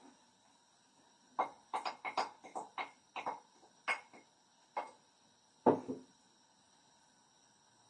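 Metal spoon clinking and tapping against a plate as onion filling is scraped off it: a quick, uneven run of about a dozen light clinks, the last one the loudest.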